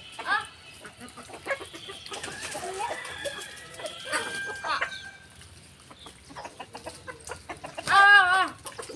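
Flock of desi chickens clucking as they gather to feed, with short calls scattered through and one louder, wavering call near the end.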